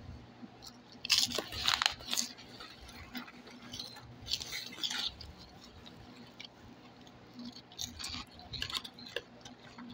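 Chewing and crunching puffed pork rinds, heard as three short spells of crackling crunches.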